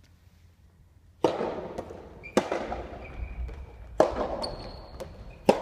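Soft tennis rally: rackets strike a soft rubber ball four times, about one and a half seconds apart, each hit echoing around a large gymnasium hall.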